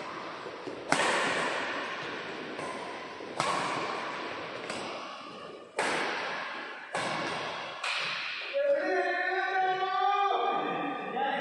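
Badminton rally: about seven sharp shuttlecock hits off the rackets, each ringing on in the echo of a large indoor hall. Voices follow from about eight and a half seconds in.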